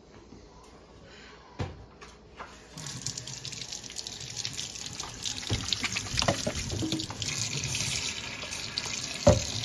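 Kitchen faucet running into a stainless steel sink and over hands being washed, the steady rush of water starting about three seconds in. A few light knocks come before it, and a sharp thump near the end.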